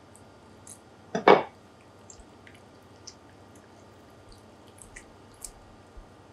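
Cleaning a cuttlefish by hand on a wet wooden cutting board: one brief wet knock about a second in, then faint scattered clicks and squelches as the innards are pulled out.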